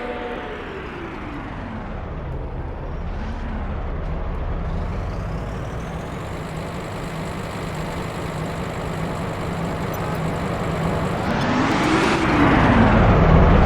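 A motor vehicle's engine running, its pitch falling over the first few seconds, then rising and falling twice near the end as it grows louder.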